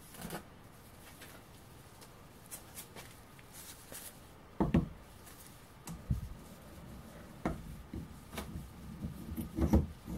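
A string of short metallic knocks and clunks as a steel mortar tube is set into a bench vise and the vise is clamped shut on it. The loudest knocks come close together near the end.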